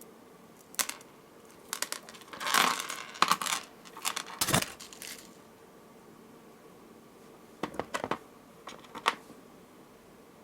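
Small hard beads clicking and clattering against each other as they are picked up and threaded onto a necklace strand: a run of clicks in the first half, then a few more near the end.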